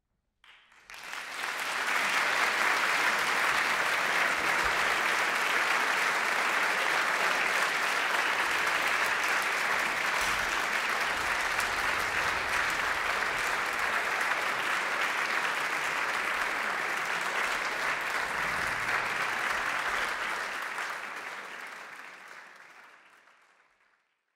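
Concert audience applauding. The clapping starts suddenly, holds steady and dense, and fades out over the last few seconds.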